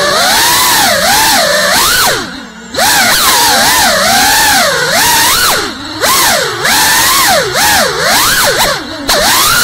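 GEPRC CineLog 35 cinewhoop's motors and ducted propellers whining, the pitch sweeping up and down continually with throttle. The sound drops away briefly about two seconds in, and again near six and nine seconds.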